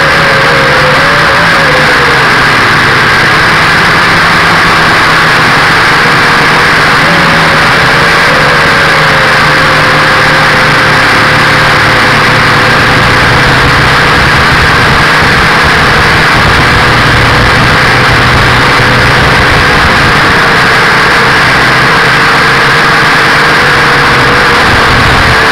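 Visitor 6 quadcopter's electric motors and propellers, recorded by its own onboard camera: a loud, steady buzzing whine that wavers slightly in pitch in the first couple of seconds and again about eight seconds in, then holds steady.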